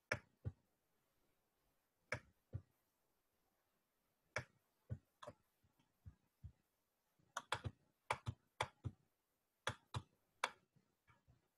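About twenty short, sharp clicks at irregular spacing, bunched more closely from about seven to ten and a half seconds in, with near silence between them.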